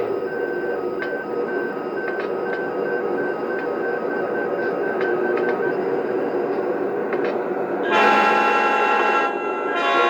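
Lionel ES44 model diesel locomotive's sound system playing a locomotive bell, ringing steadily over the engine's running sound; the bell stops about six seconds in. About two seconds later the multi-note horn sounds loudly, breaks off briefly, and sounds again near the end.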